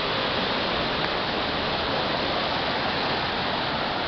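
Floodwater rushing steadily across a flooded street and pouring into a storm drain, an even, unbroken rush.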